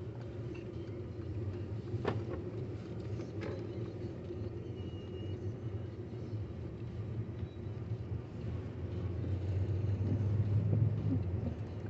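Steady engine and road rumble heard from inside a moving car, growing somewhat louder near the end, with a couple of faint clicks early in the drive.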